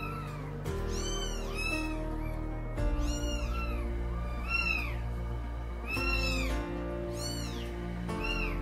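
Cats meowing in short rising-and-falling calls, several in quick succession at a time, over background music with sustained chords.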